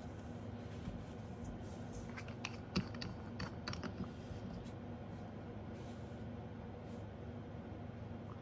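Light scattered clicks and taps from handling nail-stamping gear: a metal stamping plate set down on the mat and a polish bottle picked up, bunched about two to four seconds in, over a faint steady hum.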